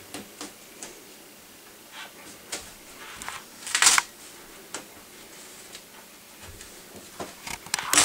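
Scattered clicks, taps and rustling of metal duct pipe being handled and fitted overhead, with a short, louder rasp about four seconds in and a cluster of clicks near the end.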